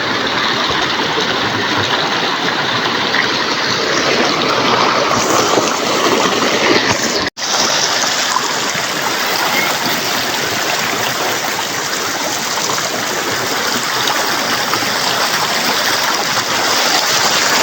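River water flowing and rushing close by, a loud, steady wash of noise, broken once by a split-second cut to silence about seven seconds in.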